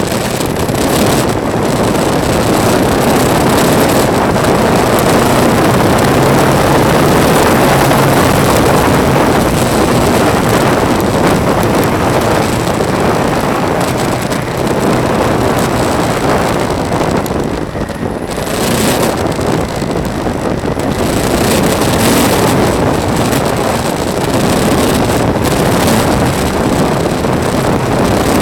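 Vehicle driving over a gravel road: a steady rush of engine, tyres on loose gravel and wind buffeting the microphone, easing briefly about two-thirds of the way through.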